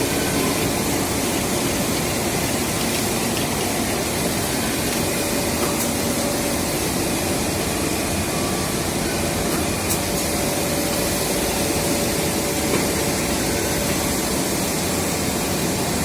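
Steady running noise of cable-production machinery, an extrusion line with its automatic coiling and wrapping machine, an even hiss and hum with a few faint steady tones.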